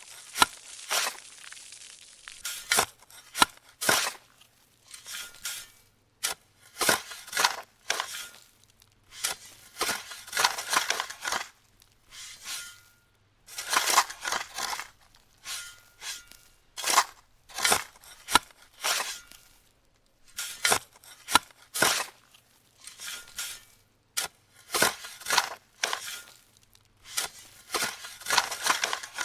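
Bench handwork on small model parts: repeated short scraping, cutting and crunching strokes, each lasting about half a second to a second, with pauses between them.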